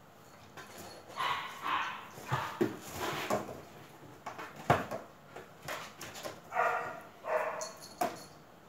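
Cats pawing and tumbling against a cardboard box, with sharp knocks and scuffs of cardboard on a tile floor. A few short animal calls come in between, in clusters about a second in and again around two thirds of the way through.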